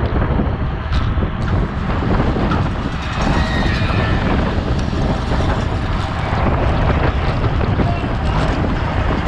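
Steady wind rush on the microphone of a bicycle-mounted action camera while riding at speed.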